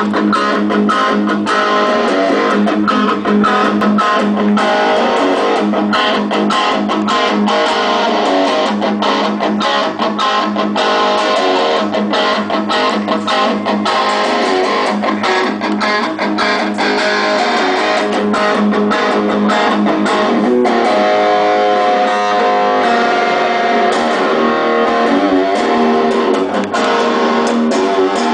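Ibanez PGM custom electric guitar played through an amplifier: fast picked note runs with many quick attacks, and a stretch of longer held notes about two-thirds of the way through.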